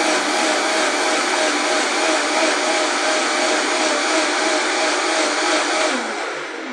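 Vitamix E310 blender running at high speed through a thick green smoothie, a steady loud whirr with a churning wobble. Near the end it is switched off and the motor winds down; the smoothie is now smooth.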